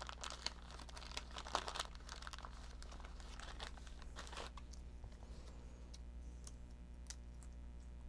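Crinkling and rustling of paper or plastic craft packaging being handled for about four and a half seconds, then a few faint clicks.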